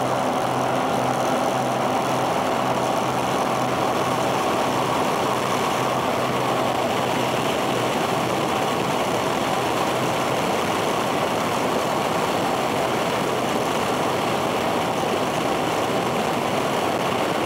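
Cessna 310's twin six-cylinder piston engines and propellers at takeoff power with rushing airflow, heard from outside under the fuselage; a steady, even drone through the takeoff roll and lift-off.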